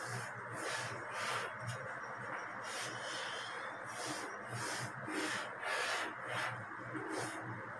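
Chalk scraping across a blackboard as lines are drawn, a series of short strokes about one or two a second, over a steady low hiss.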